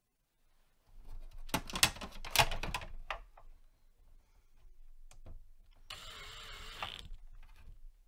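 Cordless drill driver on a low torque setting driving hard-drive mounting screws: a burst of rapid clicking and whirring for about two seconds, starting about a second in, then a second run of about a second near the end.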